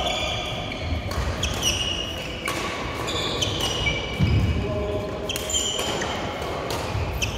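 Badminton play in a large, echoing hall: court shoes squeaking in short chirps on the synthetic court mats, dull thuds of footfalls and lunges, and sharp clicks of rackets striking shuttlecocks.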